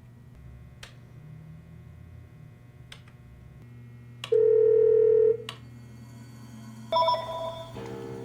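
Outgoing phone call ringing on the line: one steady ringback tone about a second long roughly halfway through, over a low hum with a few faint clicks, then more tones as the call connects near the end.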